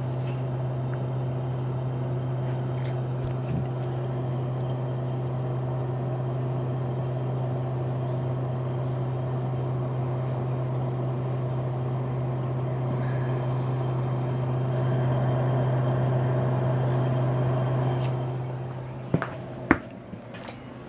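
A 2006 Marvel bar fridge's refrigeration compressor running with a steady low hum: the unit still runs even though its thermostat is bad. Near the end the hum fades and there are a few sharp knocks.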